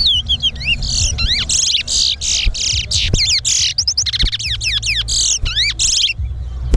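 Towa-towa seed finch song: fast, continuous runs of high whistled notes sweeping up and down. The song breaks off briefly near the end, over a steady low hum.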